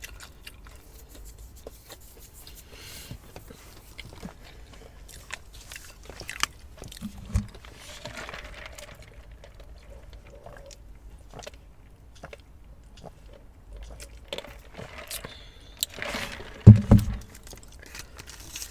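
Close-miked eating of fast food: chewing, biting and wet mouth clicks and crunches throughout. A sudden loud low sound comes near the end.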